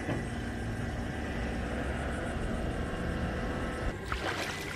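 Diesel engines of a Navy landing craft utility (LCU) running steadily across the water, heard as a low rumble with a faint steady hum. About four seconds in, a brief rushing hiss cuts across it.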